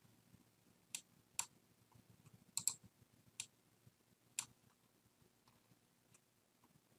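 Computer mouse buttons clicking: about half a dozen sharp, irregularly spaced clicks, including a quick double click a little under three seconds in, over faint room tone.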